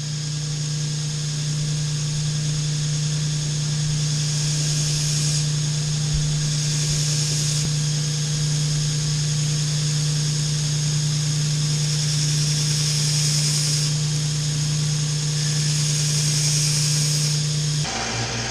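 Electric buffing wheel running steadily on a forged knife, a constant motor hum under a hiss that grows and fades in stretches as the steel is worked against the wheel. The hum changes near the end.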